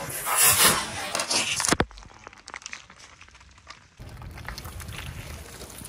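Plastic cups of jelly crackling and crunching as a car tyre rolls over and crushes them, for about the first two seconds. Then it goes quieter, and a low steady rumble comes in about four seconds in.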